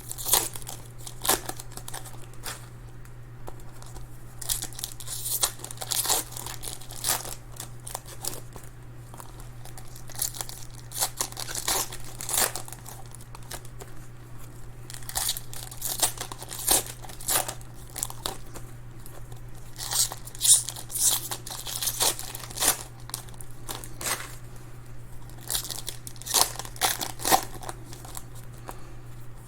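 Crinkling and tearing of trading-card pack wrappers and packaging being handled and ripped open, in irregular crackly rustles.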